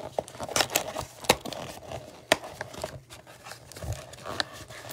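Hands opening a cardboard trading-card hanger box and handling the cellophane-wrapped card stack inside: irregular crinkling with scattered sharp clicks of card stock and plastic.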